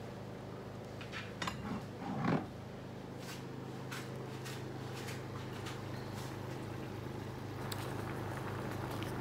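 Bottles and jars clicking and knocking as they are handled on a pantry shelf, with a short squeak about two seconds in, over a steady low hum. Near the end, liquid bubbling in a pan of simmering fish.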